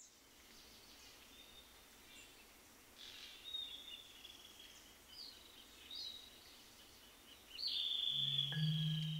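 Faint wetland nature ambience: a soft hiss with scattered high chirps and long, high whistling calls that slide slightly downward, the longest and loudest near the end. Low steady tones join in near the end.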